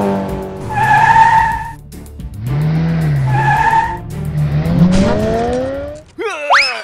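Cartoon race-car sound effects: an engine revving with two long tyre screeches about two seconds apart, then the engine rising in pitch, followed by a short burst of gliding sound effects near the end. Music plays underneath.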